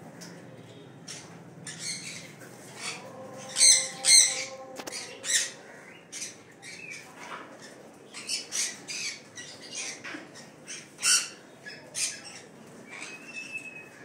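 Suncheek green-cheeked conures squawking: a run of short, harsh calls, the loudest two close together about four seconds in, with more scattered calls through the rest.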